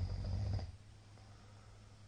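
A middle-aged man's snore, loud and rough, that stops under a second in.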